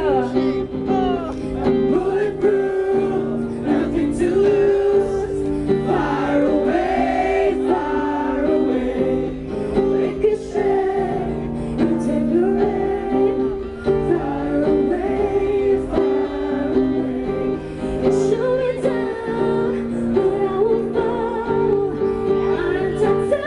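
A woman singing into a microphone while strumming an acoustic guitar, a live amplified vocal-and-guitar performance.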